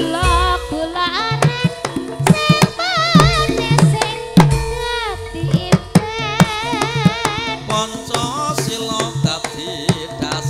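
Javanese gamelan (karawitan) playing tayub dance accompaniment: frequent hand-drum strokes over ringing, sustained metallophone notes, with a high melody line in a wide, wavering vibrato.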